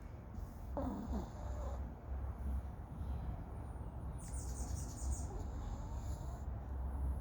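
Snoring, in two breaths: a short falling squeaky tone about a second in, then a longer whistling hiss from about four seconds in.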